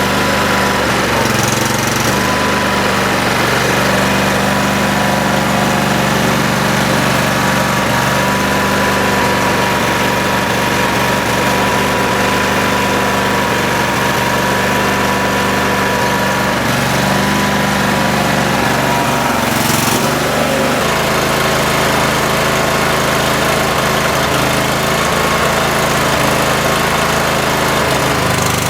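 Cub Cadet 3225 riding mower's 22 hp Kohler two-cylinder engine running steadily, its note changing about two-thirds of the way through. It is being run to check an intermittent miss that the owner suspects comes from a bad ignition coil.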